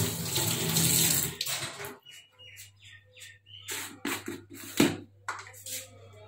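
Kitchen tap running into a steel sink for about a second and a half, then shut off. Light clicks and knocks follow as a plastic jar is opened and a steel spoon is taken from a hanging rack, with one sharper knock near the middle, over a steady low hum.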